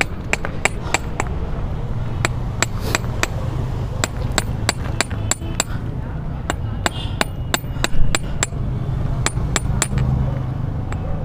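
Small hand hammer tapping metal on a small anvil block, shaping copper nails for a wooden rowing boat: quick, sharp metallic taps at about two or three a second, pausing briefly near the middle, over a steady low rumble.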